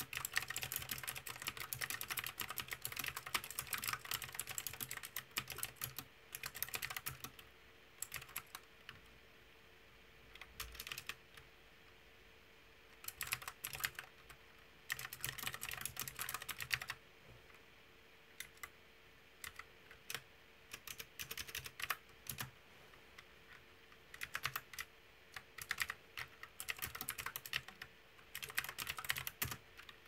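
Typing on a mechanical keyboard with round, typewriter-style keycaps: fast runs of sharp key clicks that break off into a few scattered keystrokes between runs.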